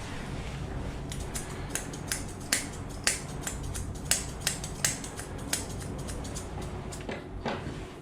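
Grooming scissors snipping through a Pomeranian's coat in a run of sharp, irregular cuts, over a steady low hum.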